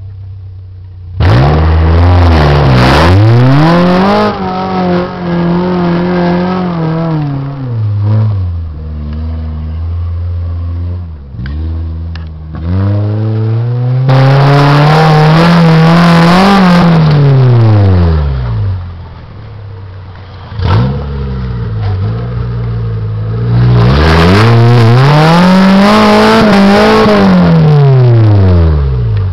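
Modified Suzuki Samurai rock crawler's engine revving hard under load on a steep rocky climb. It comes in three long surges, each rising in pitch and then sinking back, with a lower, steadier engine note between them.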